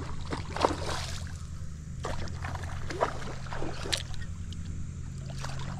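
A hooked bass thrashing and splashing at the water's surface in irregular bursts while being fought toward the bank, over a steady low hum.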